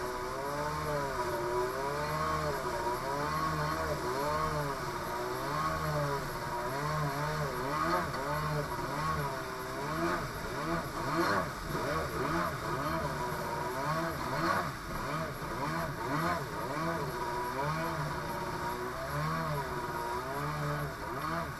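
Two-stroke jet ski engine running at speed over choppy water, its pitch rising and falling about once a second, with the hiss of spray from the hull.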